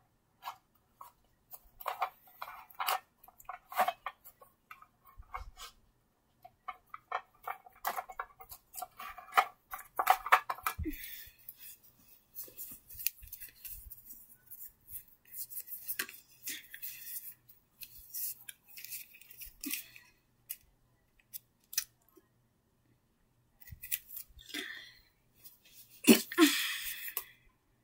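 Intermittent rustling, scraping and small clicks of things being handled close by, coming in clusters, with a louder burst near the end.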